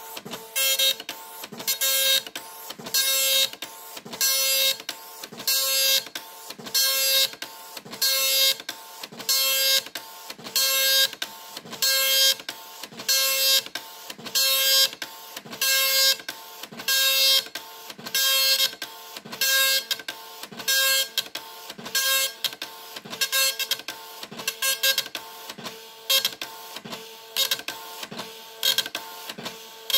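Epson dot-matrix printer printing a picture in graphics mode: the print head buzzes across the page in short passes, about one a second, with brief gaps between them as the paper steps on.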